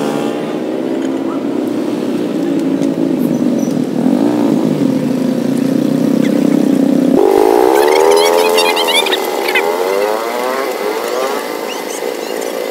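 A motor vehicle engine running with a steady hum. About seven seconds in the sound changes abruptly, and its pitch then rises and falls repeatedly.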